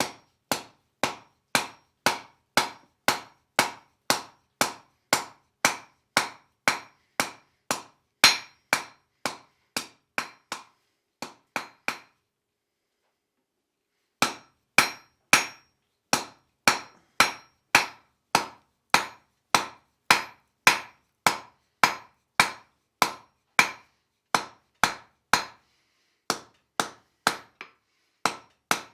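Blacksmith's hand hammer striking hot iron on an anvil while forging a leaf, in a steady rhythm of about two blows a second, each with a short ring. The hammering stops for about two seconds near the middle, then resumes at the same pace.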